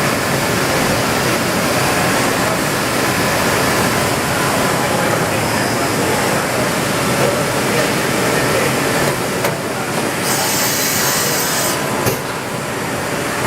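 Fadal VMC40 CNC vertical machining center running, a steady mechanical rush, with a sharp high hiss lasting nearly two seconds about ten seconds in.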